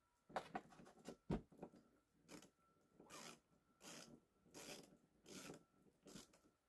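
Faint ratchet wrench worked in short back-and-forth strokes, a rasping ratchet sweep about every three-quarters of a second with one sharp click about a second in, as the 10 mm nut holding a rear wiper arm is loosened.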